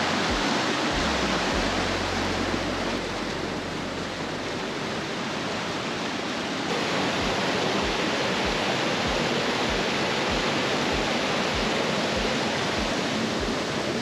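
Rain-swollen creek rushing over rocks and small drops in a steady, even rush of water, a little louder from about halfway through.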